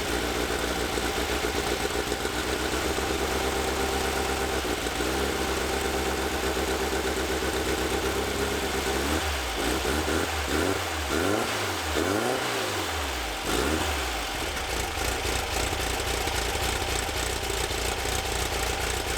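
Freshly installed air-cooled flat-four engine of a 1964 Volkswagen Bus idling steadily just after its first start, revved up and down several times about halfway through, then settling back to idle.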